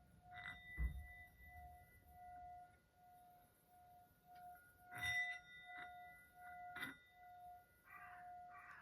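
Quiet healing tones: a soft steady note that pulses on and off about every two-thirds of a second, over which light metallic strikes ring on in clear high tones, once near the start, and again around five and seven seconds in. A low soft thump about a second in is the loudest moment, and short soft hissy bursts come near the end.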